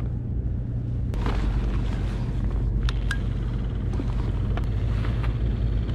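Steady low hum and rumble, deepening about a second in, with a few light clicks of handling as a small battery-powered aeration pump is set on a live-bait bucket.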